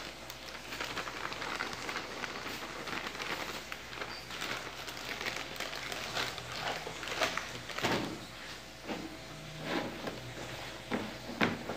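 Wheat flour tipped from its bag onto dough in a plastic bowl, then a hand squeezing and kneading the dough against the bowl: rustling and crackly handling noise, with a few sharper knocks in the second half.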